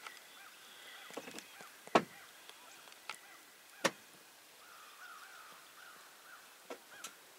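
Faint bird calls, with a wavering call a little after the middle, broken by a few sharp knocks or clicks, the loudest about two seconds in.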